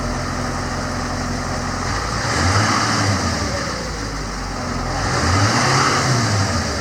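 Duramax 6.6-litre V8 turbo-diesel in a GMC C5500 truck idling, revved up briefly twice and settling back to idle each time.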